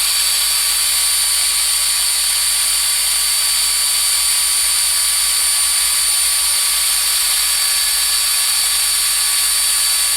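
Wood router with a 1/16-inch bit, mounted in an Arduino-controlled CNC frame, running at speed while carving a wooden sign. It makes a steady high whine that does not change.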